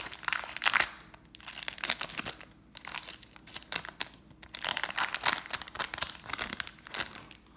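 Foil wrapper of a 2019 Topps Chrome baseball card pack being torn open and crinkled in the hands, in irregular crackling bursts.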